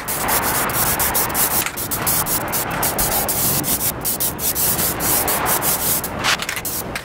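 Aerosol can of Plasti Dip rubber coating spraying with a hiss, broken by many brief breaks.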